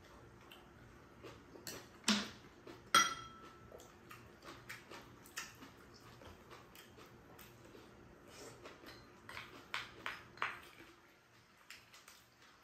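Chopsticks and spoons clicking and scraping against bowls while eating. The loudest knocks come about two and three seconds in, the second with a short metallic ring, followed by scattered lighter clicks and a small cluster of clinks near the end.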